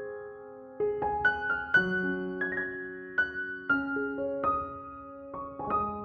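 Background piano music: single notes struck one after another in a slow melody, each ringing on and fading.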